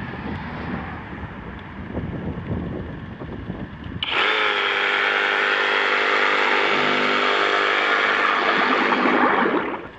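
Flex FX2271 24-volt brushless cordless reciprocating saw running partly under water, throwing up spray. Its motor starts suddenly about four seconds in, dips and settles in pitch, runs steadily, and cuts out near the end, which the owner puts down to the water's resistance against the mechanism.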